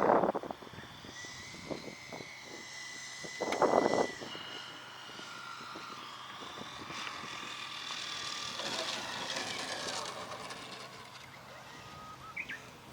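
Radio-controlled aerobatic pattern plane flying, its motor and propeller whine sliding in pitch as it moves through the manoeuvres. Two loud short rushes of noise cover it at the very start and about four seconds in.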